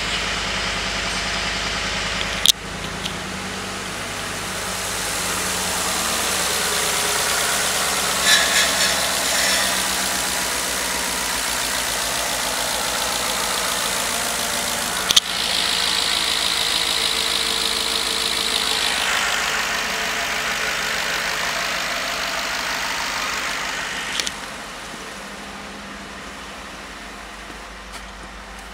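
Ford 5.0 Coyote DOHC V8 in a 2012 F-150 idling steadily, with a few sharp knocks, one a couple of seconds in and one about halfway. The engine sound gets quieter a few seconds before the end.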